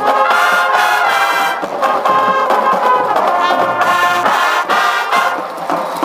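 High school marching band playing loudly, led by brass: trombones and trumpets sounding chords in rhythmic accented hits.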